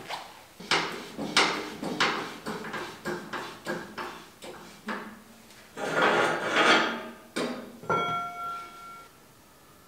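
A quick run of knocks and clacks as tools and parts are handled on a motorcycle, with a longer scraping rustle about six seconds in, then a short metallic ringing tone lasting about a second near the end.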